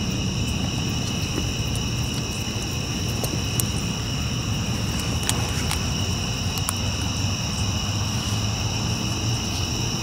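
A steady chorus of night insects trilling in several high tones, over a low steady rumble, with a few faint clicks near the middle.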